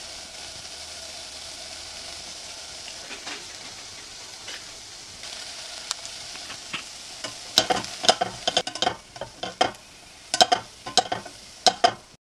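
Chopped onions and garlic frying in olive oil in a stainless steel pot, with a steady sizzle. From a little past halfway, a spatula stirring in the paprika knocks and scrapes against the pot in quick, irregular clacks.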